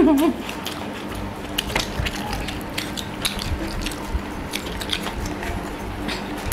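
Eating by hand at close range: irregular small clicks and smacks of chewing, with fingers working rice on the plates, over a steady low hum.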